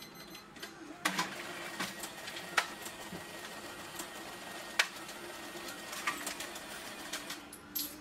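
Scattered clicks and knocks of small objects being handled behind a shop counter, over a faint steady hum.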